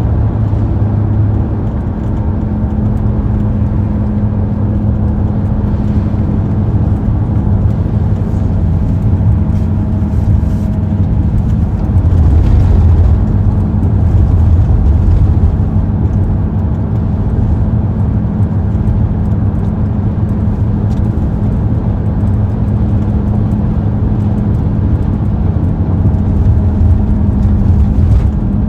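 Car driving at a steady speed: a continuous low drone of engine and road noise.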